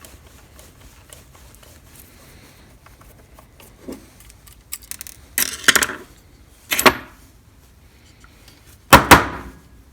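Metal hardware being handled and knocked together: a light knock, a rattling clatter, a sharp clank, then a louder double clank near the end.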